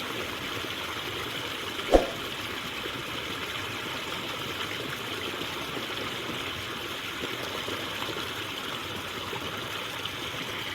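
Water running steadily in a narrow rice-field irrigation ditch, with a single short thump about two seconds in.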